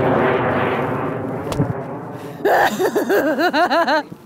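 Amateur high-power rocket motor roaring as the rocket climbs away, the roar fading steadily over the first couple of seconds, with one sharp crack about a second and a half in. Then a person's voice breaks into rapid, wavering yelps.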